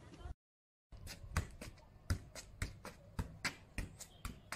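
Football being juggled: a foot and knee strike the ball again and again, a sharp thump about three times a second, starting about a second in.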